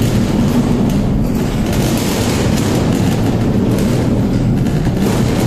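Loud, steady low rumble of ship's machinery, heard inside a steel duct keel.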